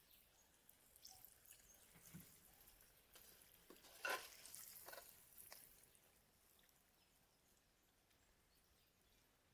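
Faint frying in a kadai of hot oil, a soft high sizzle that fades in the second half, with a few light clicks and one sharp click about four seconds in.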